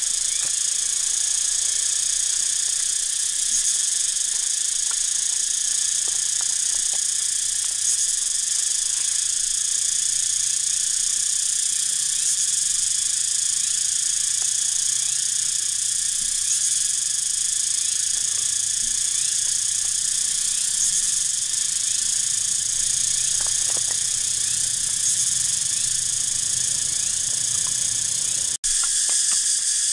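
Steady high-pitched drone of an insect chorus, with a few faint clicks of dry sticks being laid on charcoal.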